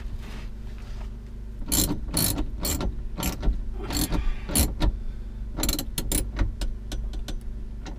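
Ratchet wrench clicking in short, irregular strokes from about two seconds in, as a battery cable lug is tightened onto a bus bar. A steady low hum runs underneath.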